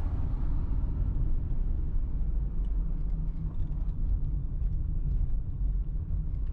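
Steady low rumble of a car driving, with road noise and no sudden events.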